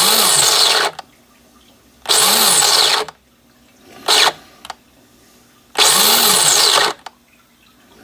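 Mr. Coffee coffee grinder's motor running in short bursts of about a second each, three times with a brief blip between, each spinning up and winding down on its own while the button is held down: the fault that makes the grinder quit in the middle of grinding.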